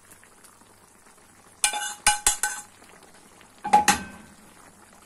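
Metal utensil scraping and knocking against a frying pan as thick tomato-vegetable sauce is scraped out into a skillet: a run of clattering scrapes with a ringing metallic tone about a second and a half in, then another short clatter near the four-second mark.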